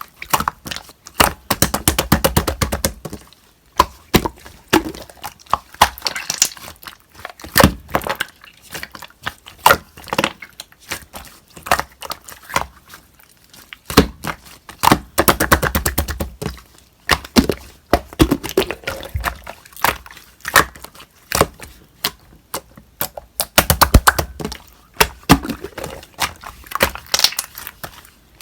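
Slime being played with by hand, crackling and popping: dense runs of sharp clicks come in several bursts, with scattered single pops between them.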